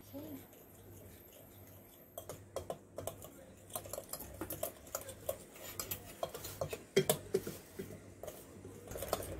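Wire mixer beater, worked by hand, stirring flour into a wet batter and repeatedly clinking and scraping against a glass bowl. The clinks are irregular and begin about two seconds in, with the loudest a little after the middle.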